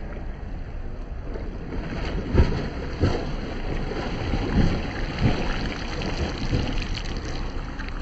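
A swimmer's arm strokes splashing in open lake water, an irregular splash about once a second from about two seconds in, over a steady rushing background noise.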